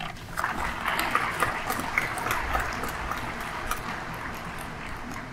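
Audience applauding, a dense patter of many hands clapping that starts about half a second in and fades toward the end.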